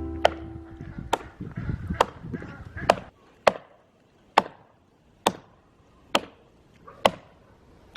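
Axe chopping into wood, a steady stroke about once a second. Background music fades out in the first second.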